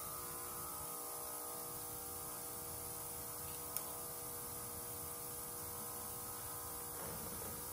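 A steady electrical hum of several even tones, with one faint click a little under four seconds in.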